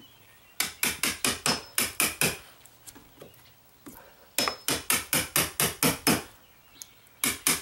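Chisel being tapped into a wooden door jamb to notch out the mortise for a deadbolt strike plate: three runs of quick, sharp taps, about four a second, with short pauses between the runs.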